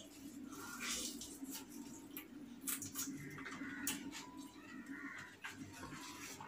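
A person chewing a mouthful of rice and egg with open-mouthed, wet smacking clicks, over a low steady hum.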